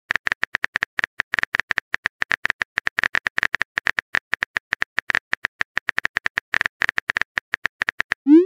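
Phone keyboard typing sound effect: quick, sharp key clicks at several taps a second, unevenly spaced, as a text message is typed. It ends with a short rising swoosh as the message is sent.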